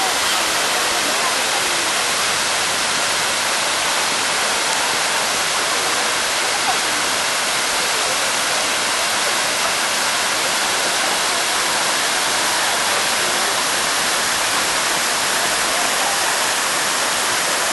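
Fountain jets spraying up and splashing back into the pond: a steady rush of falling water.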